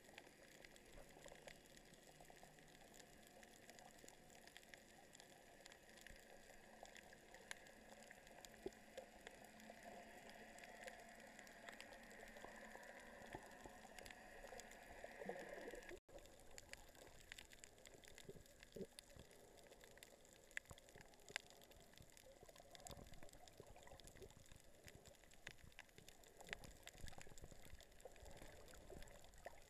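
Faint underwater water sound heard through a submerged camera: a low watery hiss with scattered small clicks and crackles, and a brief rising gurgle about halfway through.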